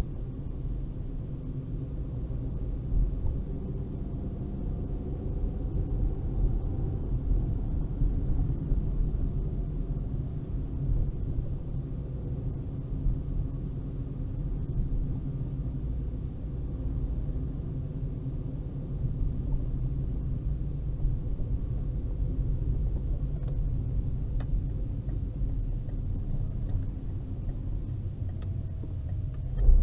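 Car driving slowly at town speed, heard from inside the cabin: a steady low rumble with a brief bump right at the end.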